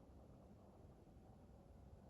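Near silence: faint, even low background noise with no distinct calls or events.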